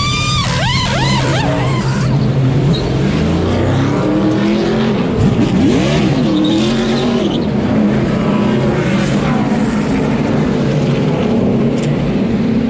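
Pneumatic impact wrench whining in quick rising-and-falling bursts on the lug nuts for the first second or so. Then NASCAR stock-car V8 engines run on pit road, with engine pitch rising and falling as a car pulls away.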